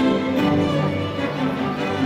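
Orchestral holiday music with strings, the soundtrack of the fireworks show, holding sustained notes.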